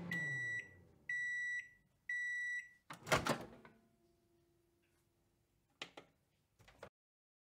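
Microwave oven finishing its cycle: the running hum winds down, then three high end-of-cycle beeps, each about half a second long and a second apart, followed by the loud clunk of the door latch popping open. Two small clicks follow near the end.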